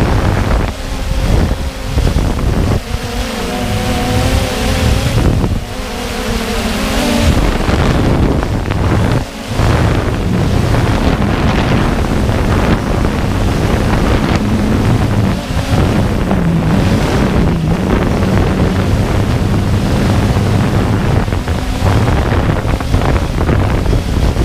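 Walkera Tali H500 hexacopter's electric motors and propellers buzzing in flight, heard from the camera mounted on it, under heavy wind rush on the microphone. The motor hum wavers up and down in pitch as the drone manoeuvres.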